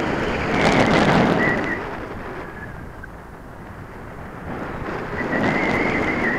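Onboard view of a ParkZone Radian electric motor glider: the electric motor and propeller run in two bursts, a thin high whine over a loud rush of air, for the first two seconds and again from about five seconds in. Between the bursts only a softer rush of wind over the camera is left.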